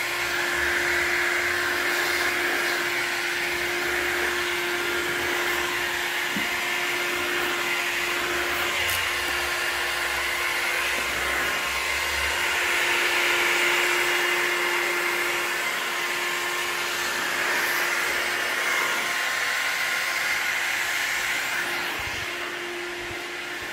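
Handheld heat gun running steadily, its fan blowing air with a constant motor hum as it warms vinyl wrap film. It gets a little quieter in the last couple of seconds.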